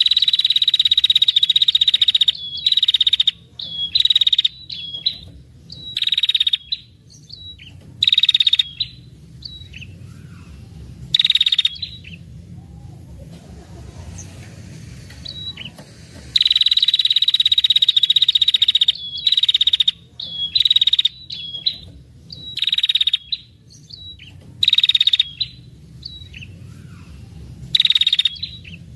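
Female red-headed prenjak giving rapid rattling trills ('ngetir') near one high pitch, in repeated bursts: two long ones of about two and a half seconds, near the start and past the middle, and many short ones of about half a second, with a few brief chips between them. A low steady hum lies underneath.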